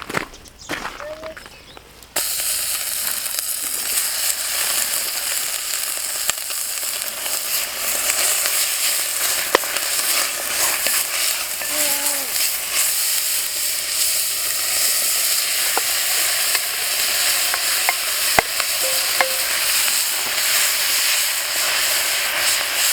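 Food sizzling and frying in hot oil, starting abruptly about two seconds in and going on steadily with scattered sharp pops and crackles.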